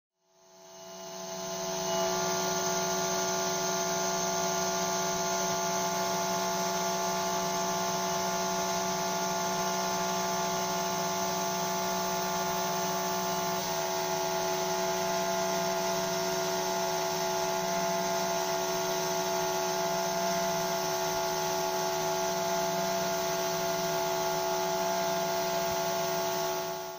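CNC 3040 desktop mill's 200 W spindle motor running with a steady whine of several pitches as it mills a copper-clad circuit board. It fades in over the first two seconds and out at the very end, and a few of the higher tones drop out about halfway through.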